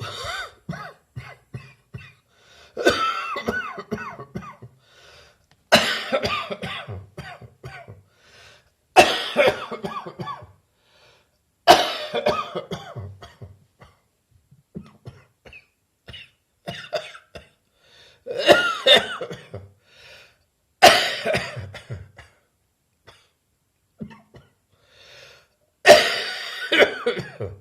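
A person's dry cough from bronchitis on the mend: about eight hard coughing fits, each sudden and trailing off, with smaller coughs and breaths between them.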